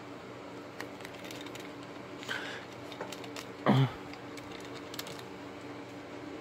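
Light clicks and taps of a die-cast toy monster truck being handled and turned over in the hands, over a faint steady hum. A short tone falling in pitch, the loudest sound, comes a little past halfway.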